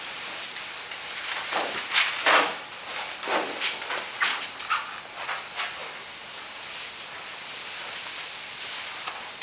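Vinyl roof covering and the paper beneath it rustling as the sheet is lifted and laid back over the car roof: a run of short swishes from about one and a half to six seconds in, the loudest near two seconds, over a steady hiss.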